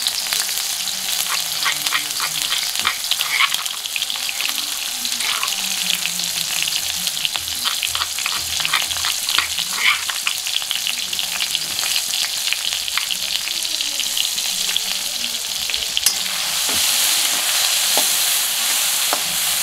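Chili, garlic and shallot paste with lemongrass sizzling in hot oil in a wok as it is sautéed and stirred, with many small crackles and pops. The sizzle grows louder about three-quarters of the way through.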